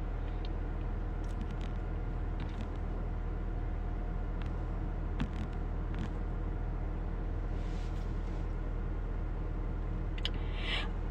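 Steady low rumble of a car, heard from inside the cabin, with a few faint ticks.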